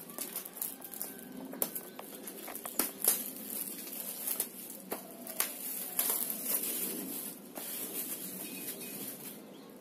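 Thin clear plastic shrink-wrap being pulled off a cardboard box, crinkling and crackling irregularly with many sharp clicks.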